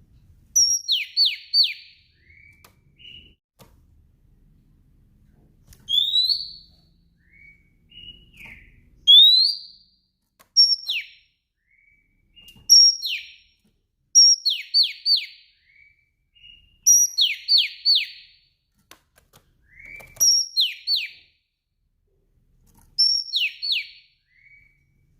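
Female oriental magpie-robin calling: a phrase repeated every two to three seconds, usually a short high note followed by three quick downward-sliding whistles and a couple of softer lower notes, with some phrases instead a single rising whistle.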